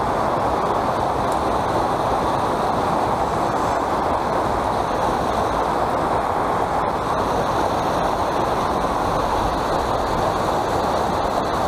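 Steady rushing of a small river's white-water riffles and cascades close to the microphone, with a couple of faint clicks.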